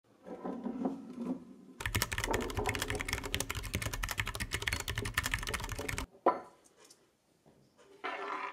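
Rapid keyboard typing clicks for about four seconds, keeping time with on-screen title text appearing letter by letter, then one sharp click a moment after they stop.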